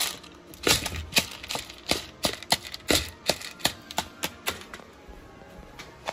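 A quick, irregular run of sharp clicks and taps, about three or four a second, that thins out near the end, over faint background music.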